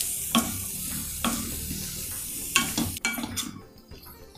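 Diced bottle gourd sizzling in hot oil in a stainless steel kadai while it is stirred with a wooden spatula, the spatula scraping and knocking against the pan about once a second. The sizzle cuts off suddenly about three seconds in, leaving quieter stirring.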